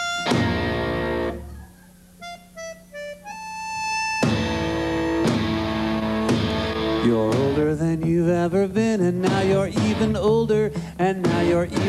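Live band music with accordion and electric guitars in an instrumental break. A chord rings out and dies away, a few sparse single notes follow, and about four seconds in the full band comes back in with strummed guitars and regular beats.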